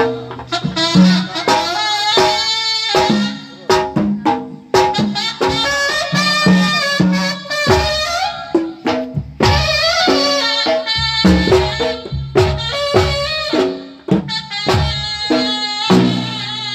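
Sundanese kendang pencak music for pencak silat: a loud reed wind instrument, the tarompet, playing a melody over a steady pattern of kendang hand-drum strokes.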